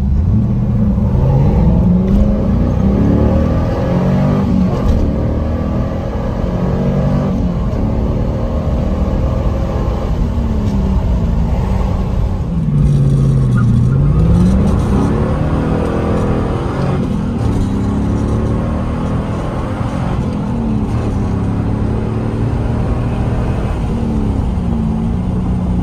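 V8 engine and exhaust of a 2002 Camaro SS (5.7L LS1, Flowmaster exhaust) pulling hard under acceleration. The engine pitch climbs and drops repeatedly through gear changes, with a longer drop and climb about halfway through.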